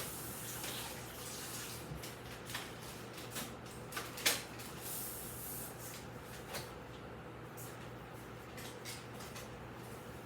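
Scattered light clicks and knocks of plastic parts being handled as an attachment on a portable vacuum cleaner is swapped, the sharpest about four seconds in, over a faint steady low hum.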